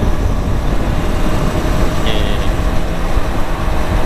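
Wind rushing over the microphone and the motorcycle's engine running at a steady cruise of about 55 km/h, with road traffic around. A brief high beep about two seconds in.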